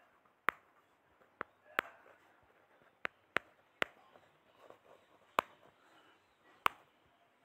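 Stylus tip tapping on a tablet's glass screen during handwriting: about eight sharp, irregularly spaced clicks over faint room hiss.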